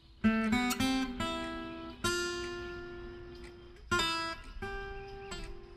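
Background music on acoustic guitar: chords struck about every two seconds, each ringing out and fading, with single picked notes between them.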